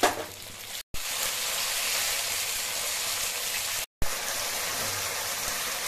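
Ground spice paste and chopped tomato sizzling steadily in hot oil in a wok. The sound cuts out completely twice, very briefly, about a second in and about four seconds in.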